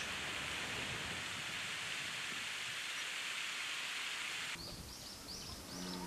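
Steady hiss of running water that cuts off suddenly about four and a half seconds in, followed by a bird giving a run of short, high chirps.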